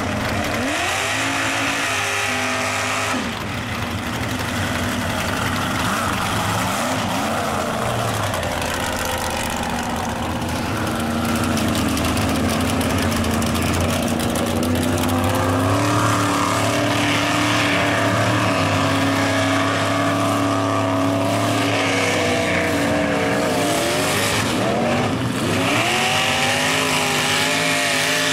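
Lifted mud trucks on oversized tires running hard through a mud pit, their engines held at high revs. The engine pitch swings up and down sharply around the first few seconds and again near the end as the throttle is worked.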